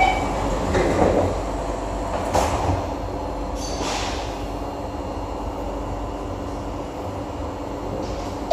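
Steady hum inside an SMRT C151A metro train car, with several knocks and thuds in the first four seconds.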